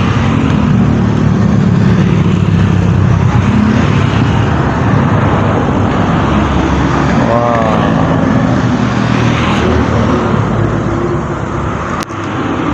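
A tour bus passing close by on the road, its engine rumbling loudly for the first few seconds and then easing off as it moves away, with traffic noise behind.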